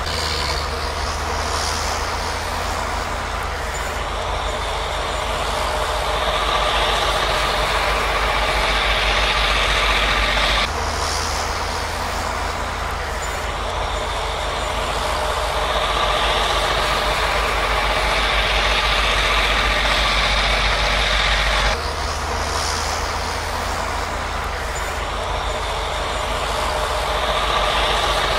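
Union Pacific rotary snowplow train clearing deep snow: the diesel locomotives give a steady low rumble under the loud hiss of snow being thrown by the rotary blades. The sound jumps abruptly twice, about a third and two thirds of the way through.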